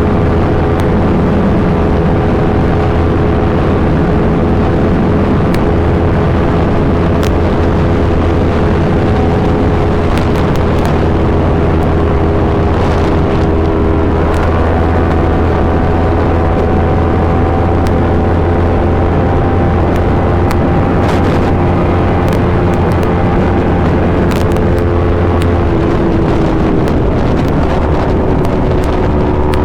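Yamaha R3's 321 cc parallel-twin engine running steadily through an Akrapovic full exhaust system, holding a nearly constant pitch. Near the end the pitch dips briefly and then settles again.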